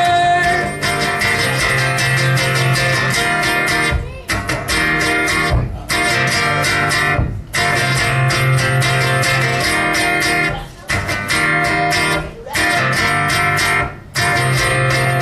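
Guitar strumming chords in an instrumental break of a song, the chords cut short several times in brief stops.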